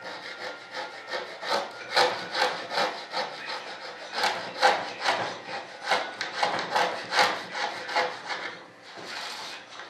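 A hand tool rubbed back and forth over a foam wing core in rough, rasping strokes, about three a second. The strokes die away near the end.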